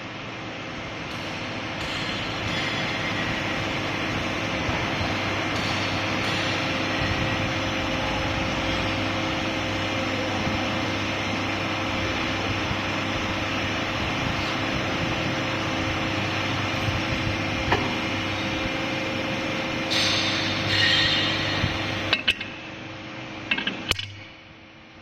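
CNC aluminium profile bending machine running with a steady hum and hiss, with a few sharp metallic clicks and clinks in the last few seconds before it goes quieter near the end.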